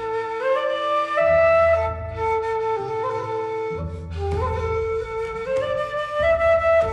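Background music: a flute plays a melody of short held notes stepping up and down, over a low accompaniment.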